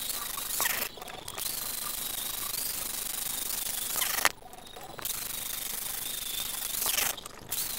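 Angle grinder running with its abrasive disc grinding into a steel bar, a steady rasping hiss over a thin high motor whine. The sound breaks off abruptly three times for about half a second: about a second in, about four seconds in, and near the end.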